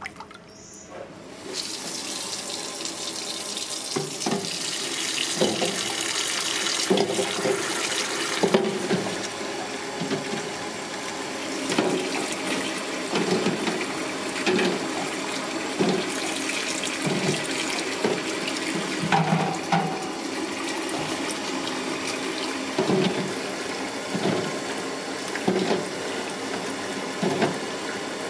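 Tap water running into a metal bowl of duck eggs in a stainless steel sink, starting about two seconds in, with dull knocks every second or two.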